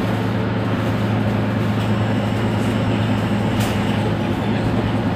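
Mercedes-Benz Citaro C2 city bus idling with a steady, even engine hum.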